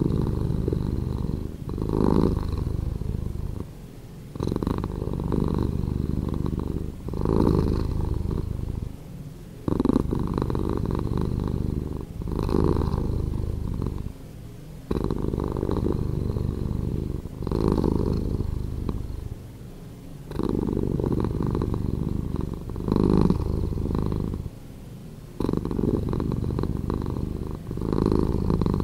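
Domestic cat purring, slowed down in editing. The purr is low and buzzy and rises and falls with each breath, about once every two and a half seconds.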